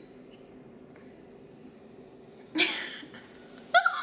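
Faint steady room hum, then a woman's loud breathy exclamation about two and a half seconds in, followed by a short high-pitched voiced cry near the end.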